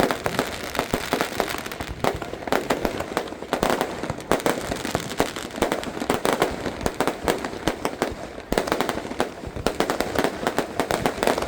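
Fireworks and firecrackers going off in a dense, unbroken string of bangs and crackles, many a second.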